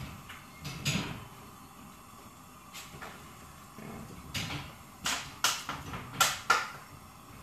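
A low kitchen cabinet being opened and shut and a bottle of olive oil put away inside it: a few scattered knocks, then a run of several sharp clunks about five to six and a half seconds in.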